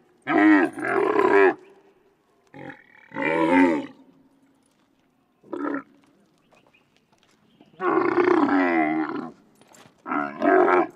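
Dromedary camel calling repeatedly: five wavering calls of up to about a second and a half each with short pauses between, the middle one brief.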